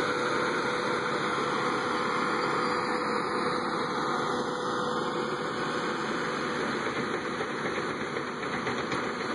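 Diesel engine of an excavator running steadily, with a constant hum.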